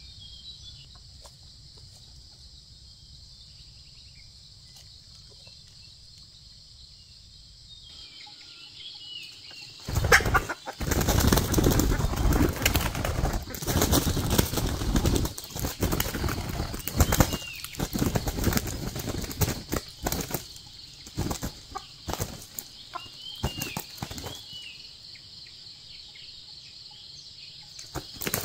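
Wild red junglefowl rooster flapping its wings hard and scuffling through dry pine needles and leaf litter. The loud, irregular flurries start about ten seconds in and thin out after several seconds. Before that there is only a steady high hiss with faint chirps.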